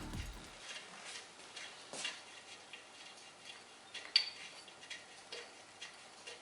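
Scattered light metallic clicks and clinks of tools and engine parts being handled during crankshaft assembly, the sharpest about four seconds in.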